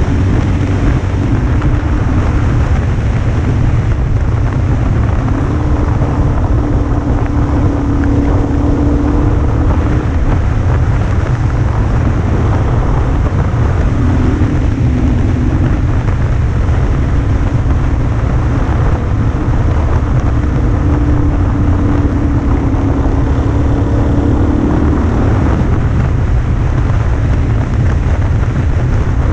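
Single-cylinder dual-sport motorcycle engine running at road speed, its note shifting up and down a few times with the throttle, under heavy wind noise on the microphone.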